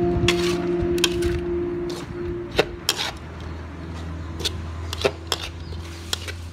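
Metal spatula scraping and clinking against a steel wok as corn kernels are stir-fried, in irregular sharp strokes.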